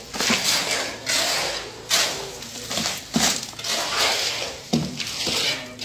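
Shovels scraping through a gravelly concrete mix and dumping it into a metal wheelbarrow. A run of rough scrapes comes about one a second.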